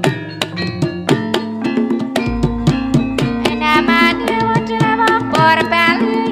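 Javanese gamelan piece in Ponorogo style, driven by fast, hard kendang drum strokes over ringing metallophone tones, with a singer's wavering voice. A deep, heavy bass comes in about two seconds in.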